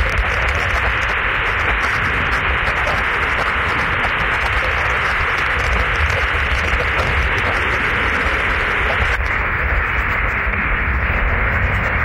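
Loud, steady rushing of falling water, an even hiss that thins slightly at the top about nine seconds in.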